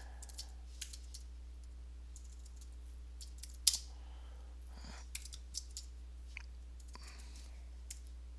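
Computer keyboard being typed on in slow, scattered keystrokes, with one louder key click about three and a half seconds in, over a steady low hum.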